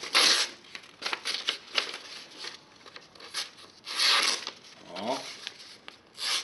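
Knife blade slicing through a hand-held sheet of printer paper, with the paper rustling and crinkling as it is handled between cuts. There are louder hissing swishes at the start and about four seconds in. It is a paper-cutting test of how sharp the edge still is after heavy kitchen use.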